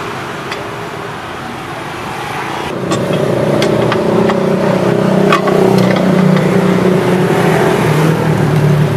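A motor vehicle engine running, getting louder about three seconds in and then holding steady, its pitch dropping slightly near the end. A few sharp clicks sound over it.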